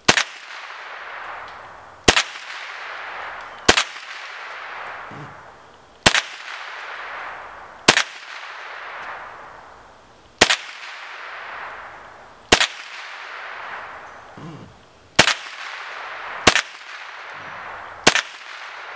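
SIG Sauer 522 rifle firing .22 Long Rifle rounds one at a time, about ten sharp cracks spaced a second and a half to two and a half seconds apart, each trailing a long echo that dies away.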